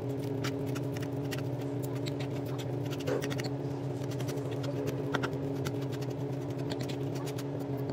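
A pot of chicken soup at a boil, with many small irregular pops and clicks over a steady mechanical hum.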